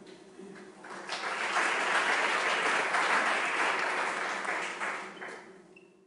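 Audience applauding: the clapping builds up about a second in, holds steady, then fades away near the end.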